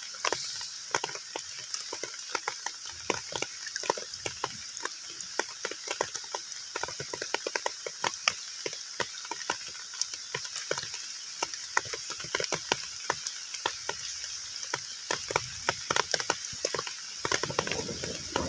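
Heavy rain falling on a pond: a steady hiss with dense, irregular splats of drops hitting the water. About a second before the end a fuller, lower rush of water comes in.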